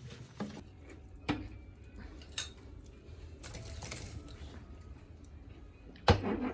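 Scattered clinks and knocks of dishes and cutlery being handled, with a louder knock near the end.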